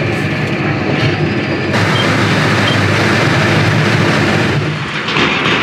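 John Deere tractor with a front loader driving along a lane, heard from inside the cab: the engine runs steadily under a rattling clatter from the moving machine.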